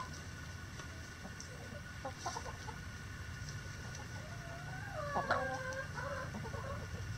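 Chickens clucking, with a few short calls about two seconds in and a longer, drawn-out call with bending pitch about five seconds in, over a steady low hum.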